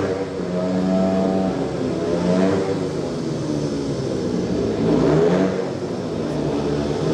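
Several speedway motorcycles' 500 cc single-cylinder engines racing, their pitch rising and falling as they rev, overlapping one another.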